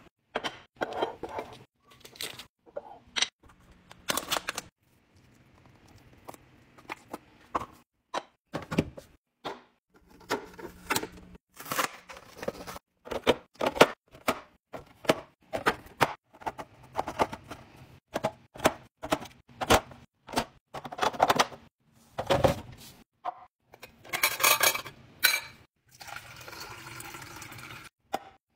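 Food containers and packages being set down and arranged while restocking a fridge: a steady run of irregular clicks, knocks and clinks, with a few longer, noisier stretches near the end.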